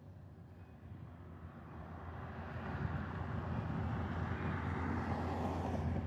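A passing motor vehicle's rumble swelling louder over a few seconds as it approaches.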